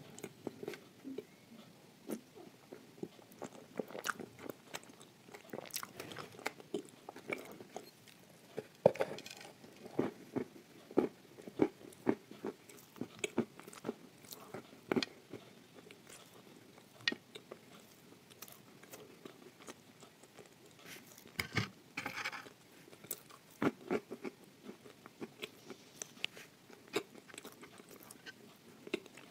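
Chewing and crunching of a dry, crumbly chunk of edible clay spread with chocolate paste. Irregular sharp crunches come all through, the loudest about a third of the way in, with another dense cluster a little past two thirds.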